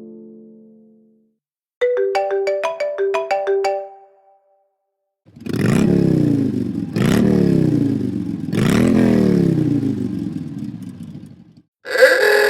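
iPhone ringtones and alert tones played back to back. The previous tone fades out, then comes a short run of quick plucked notes. After that comes a longer tone built from three repeated falling sweeps, and a bell-like telephone ring starts near the end.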